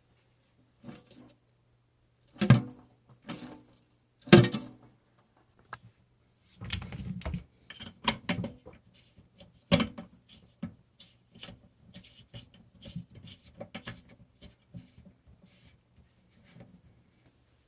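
Scattered knocks, clicks and rattles of toilet tank parts being handled during a flush-valve replacement. Two loud knocks come a couple of seconds apart, then a busier run of small taps and clatters.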